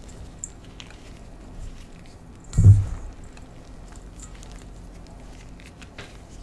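Hands squeezing and crumbling clumps of pink gym chalk: soft crunching and crackling, with one louder, dull crunch a little under three seconds in.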